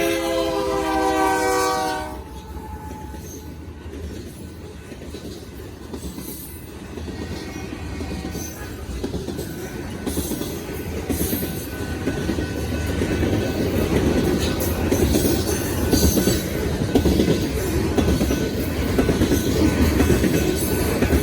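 A freight train's locomotive horn sounds a chord that cuts off about two seconds in. Then the hopper train rumbles past with clickety-clack rail noise and faint wheel squeal, growing louder toward the end.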